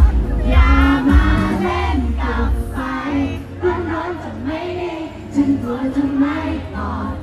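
Live concert: a male singer singing into a handheld microphone over amplified backing music, with heavy bass that is strongest in the first couple of seconds. It is heard through the venue's PA from the audience.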